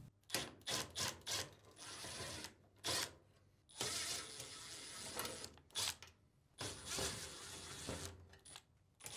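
Milwaukee M12 Fuel cordless impact driver backing sheet-metal screws out of a dryer's front frame. It runs in a series of short bursts, each with a thin high whine, after a few light clicks at the start.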